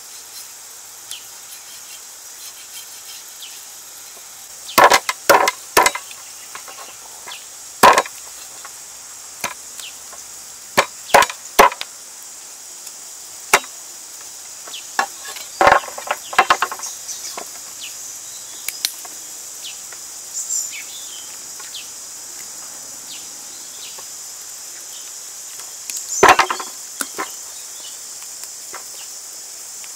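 A cleaver chops through a plucked Muscovy duck carcass onto a wooden board, giving about a dozen sharp knocks in bunches of one to three. A steady high insect drone continues behind them.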